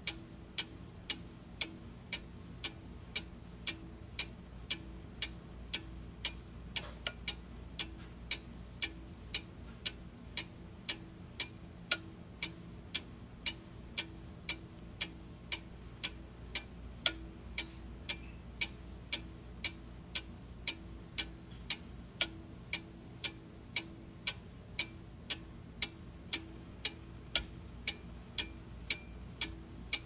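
Steady mechanical ticking, evenly spaced at about two ticks a second, over a faint steady low hum.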